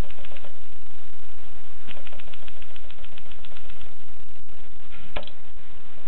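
Groma Kolibri manual portable typewriter being typed on: quick runs of key strikes, about six or seven a second, then a pause and one louder clack near the end.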